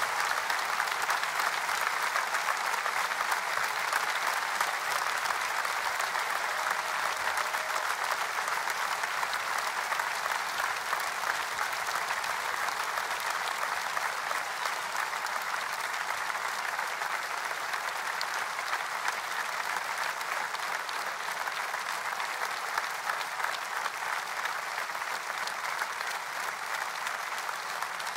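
Audience applauding: dense, steady clapping that slowly grows fainter.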